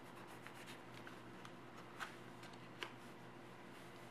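Faint rustling of a sheet of origami paper being folded and pressed flat by hand, with two sharper clicks of the paper about two and three seconds in.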